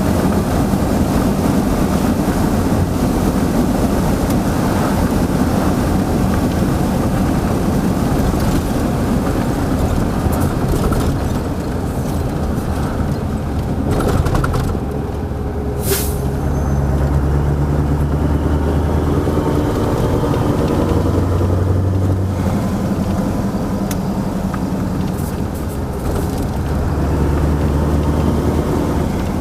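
1989 Mercedes-Benz SK 1748's V8 turbodiesel running hard, then settling lower with engine speed stepping up and down. About halfway through there is one short, sharp hiss of compressed air from the truck's air system.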